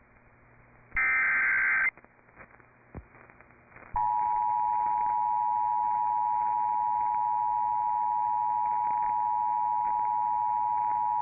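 Emergency Alert System signalling. About a second in comes the last short burst of the SAME header's digital data, then a gap, then the EAS two-tone attention signal (two steady tones, 853 and 960 Hz, sounding together) starting about four seconds in and held on. It announces an incoming severe thunderstorm warning.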